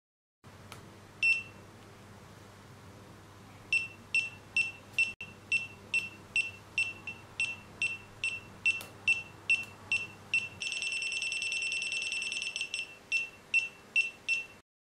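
Refrigerant leak detector (Aprvtio WJL-6000PRO) beeping from its built-in buzzer: a single high beep, then a steady run of high beeps at a little over two a second. About ten seconds in, the beeps merge into one continuous alarm tone for about two seconds, then break back into quicker beeps. This is the detector's alarm signalling refrigerant at its probe tip.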